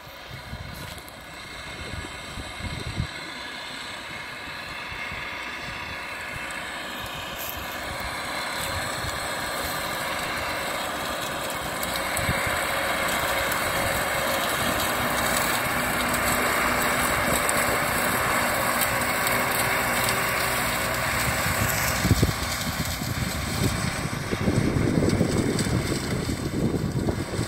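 Farm tractor's diesel engine running steadily as it pulls a stalk-chopping disc implement across sunflower stubble, growing louder as it approaches. Wind buffets the microphone in the last few seconds.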